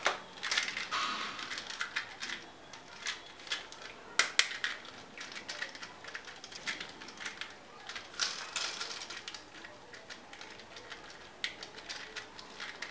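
Hard plastic toys being picked up and handled: an irregular run of clicks, taps and light rattles, with a sharp pair of clicks about four seconds in.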